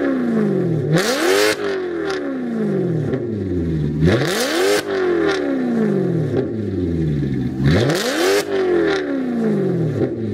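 Maserati GranTurismo's 4.2-litre naturally aspirated V8, revved hard at a standstill through an aftermarket valved exhaust with the valves open. After the tail of one rev, there are three more blips about three seconds apart. Each one climbs quickly in pitch and then falls slowly back toward idle.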